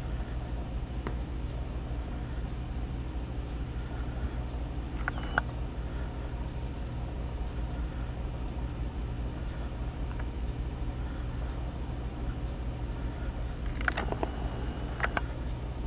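Steady low hum, like an idling engine or distant traffic, with a few sharp clicks: one about a second in, one about five seconds in, and two near the end.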